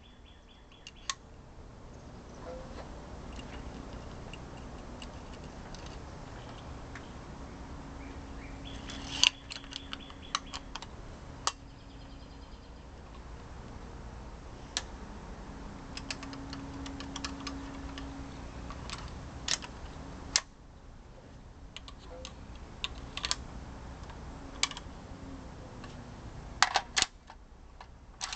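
Scattered metallic clicks and clacks from a Century VZ2008 rifle, a VZ58 clone, as it is handled, put back together and has its magazine fitted. One louder clack comes about nine seconds in and a cluster of clicks near the end. A faint steady hum runs underneath at times.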